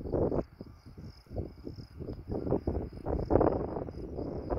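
Crickets chirping in a steady high trill over an uneven, gusty low rumble: wind buffeting the microphone mixed with the jet noise of an Airbus A321 touching down.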